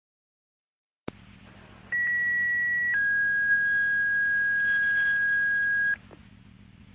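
Scanner radio channel opening with a click into hiss and a low hum, then a two-tone sequential fire page: a higher tone for about a second, followed by a lower tone held about three seconds. It is the alert tone that pages out a fire department before dispatch.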